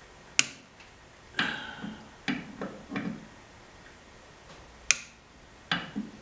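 Sharp metallic cracks and short ringing creaks at irregular intervals from a seized glow plug in a Mercedes OM642 diesel turning under a torque wrench on a long extension. The threads are galled but starting to move.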